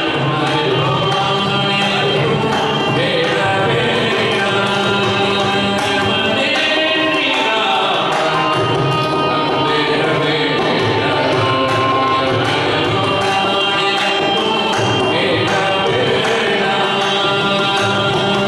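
Live Carnatic music: a male voice with violin and mridangam accompaniment over a steady drone.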